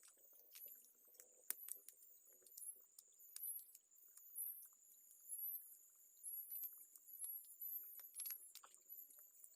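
Faint outdoor ambience: short high-pitched chirps repeating about once a second over a thin, steady high whine, with a few scattered light clicks.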